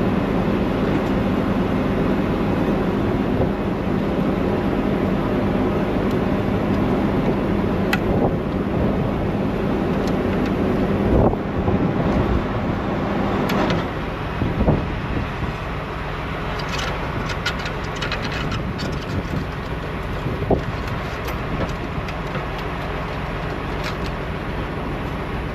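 Truck engine idling with a steady low hum that drops away about 14 seconds in. Scattered sharp metallic clicks and clinks follow, denser later on.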